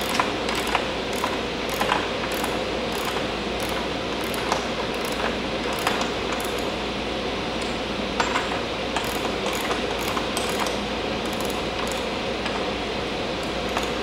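Socket ratchet clicking in irregular strokes, roughly one or two a second, as a 32 mm rear axle nut is worked loose. A fan runs steadily underneath.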